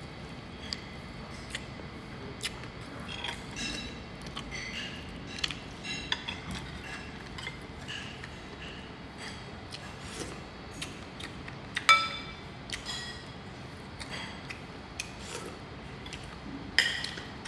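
Metal spoon clinking against plates as food is scooped up, a scatter of light clinks with brief ringing and one sharper clink about two-thirds of the way through.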